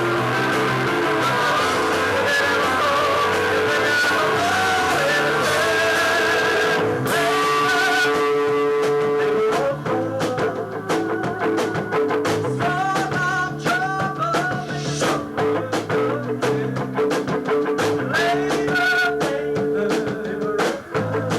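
A live new wave rock band playing, with guitar, bass and drums and a sung line. About seven seconds in the dense wall of sound thins out, leaving sharp drum hits under a stepping melody.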